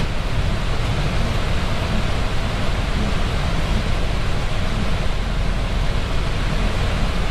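Steady, even rushing noise of an Airbus A320 flight deck in flight, with no change through the pause between radio calls.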